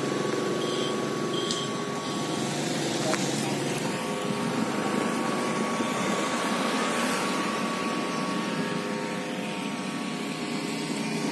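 A steady engine drone with a faint steady hum over it, holding at an even level.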